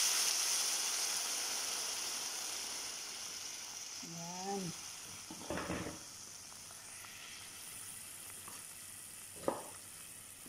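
Water poured onto hot oil and fried onions in a cooking pot, giving a loud sizzling hiss that fades steadily as the water settles. A few light knocks come about halfway through and near the end.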